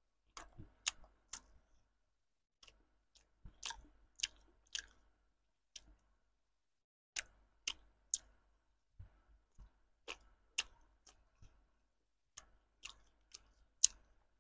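Close-miked chewing of a soft jelly-filled bread bun: sharp, wet mouth clicks and smacks in short runs of two or three, about two a second, with silent gaps between runs. The sharpest smack comes near the end.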